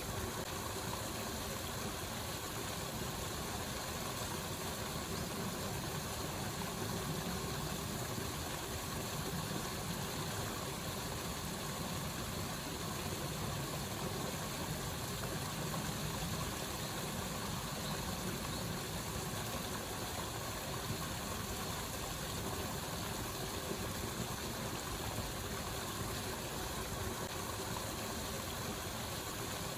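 Steady rush of water from a waterfall, an even, unbroken roar with no change in level.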